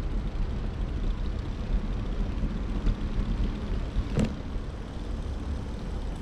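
City street ambience: a steady low rumble, with one sharp knock about four seconds in.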